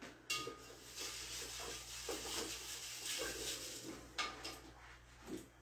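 A spatula stirring caustic soda into water in a beaker: faint scraping, with a sharper clink about a third of a second in and another at about four seconds. The soda is being dissolved to make lye.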